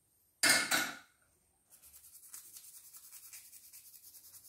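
A brief loud handling noise about half a second in, then fast, even scraping or rubbing on a small metal part of an embroidery machine, about five strokes a second, starting near the halfway mark.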